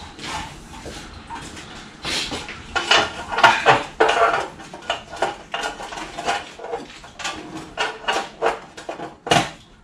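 Thin sheet-metal panels clanking and rattling as they are handled and fitted against a battery module stack: a busy run of sharp metallic knocks and clicks, heaviest from about two seconds in, with one loud clank near the end.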